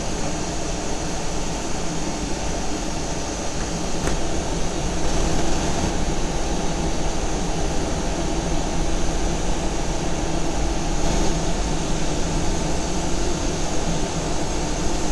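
Steady machine hum and hiss, like a running fan, with a faint tick about four seconds in.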